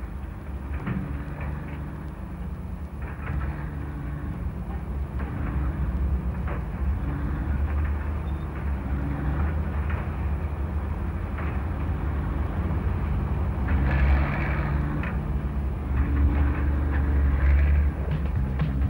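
Heavy construction machinery running with a steady low engine rumble and scattered knocks, growing louder about three-quarters of the way through.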